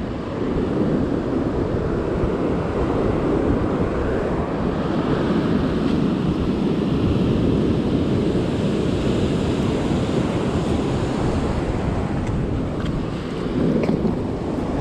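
Ocean surf washing up the beach in a steady rush, with wind buffeting the microphone.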